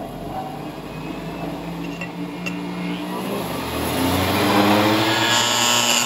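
Energized open-core choke built from a microwave-transformer core, humming at mains frequency. A steel bar held against its poles is pulled by the magnetic field and clacks and buzzes against the core, growing louder in the last couple of seconds.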